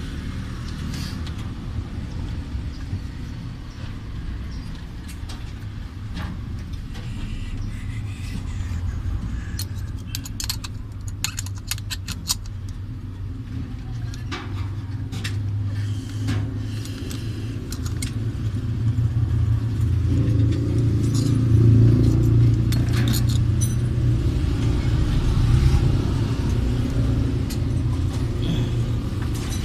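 Steady low rumble of a motor vehicle, growing louder about two-thirds of the way through, with scattered light metallic clicks and jingles from wires and gauge terminals being handled.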